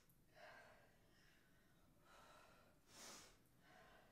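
Faint, hard breathing of a woman exercising: a few audible breaths, the loudest about three seconds in, over near silence.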